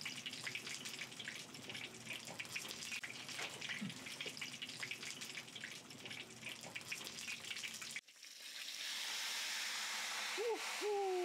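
Meat pasties frying in hot oil in a cast-iron kazan: dense crackling and popping, which changes abruptly about eight seconds in to a steadier sizzle.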